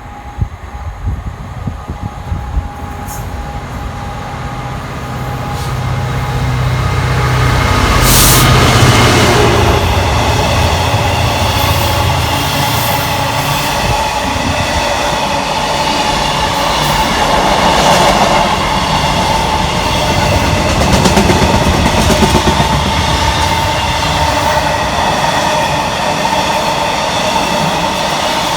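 A train approaching and running past the platform: the sound grows louder over the first eight seconds, then holds as a loud, steady rush of wheels on rail with a few steady high tones over it.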